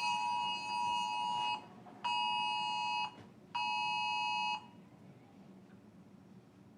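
Phone's Wireless Emergency Alert attention tone, a harsh two-tone beep sounding in its pattern of one long tone and then two shorter ones with short gaps, stopping about four and a half seconds in. It signals an incoming emergency alert, here the national test message.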